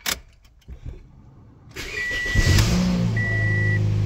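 Toyota Yaris being started with the key: a click, a short burst of starter cranking about two seconds in, then the engine catches and settles into a steady idle. A warning chime beeps at an even pace over the idle.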